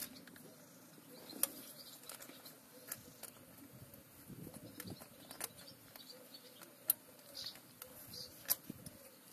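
Faint, scattered sharp metal clicks and light scraping as a new cast iron sealing ring is worked by hand into its groove in a tractor transmission's input shaft housing.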